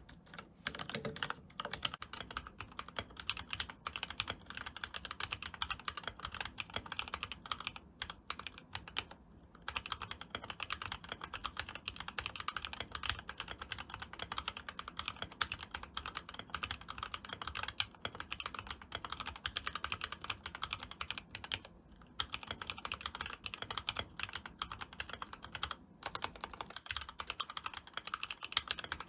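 Keychron K12 mechanical keyboard with Gateron Red linear switches, stems and springs lubed with Krytox 105, and stock ABS doubleshot OEM keycaps, typed on in a fast, continuous run of keystrokes. The typing breaks off briefly a few times.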